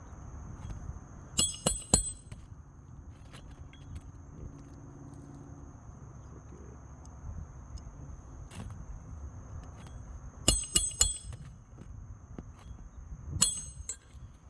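A roofer's hatchet driving roofing nails into asphalt shingles: sharp, ringing metal-on-metal strikes. There are three quick strikes about a second and a half in, a run of about four just past ten seconds, and one more near the end.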